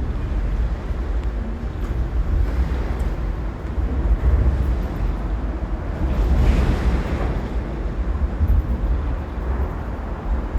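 Wind buffeting the microphone, a gusty low rumble over a steady rushing noise, swelling briefly a little past the middle.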